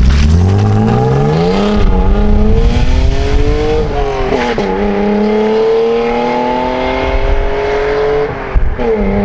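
BMW E36 exhaust through a gutted stock muffler, the engine pulling hard with its pitch climbing steadily. The pitch drops sharply about four and a half seconds in, climbs again, and drops once more near the end, like an upshift each time.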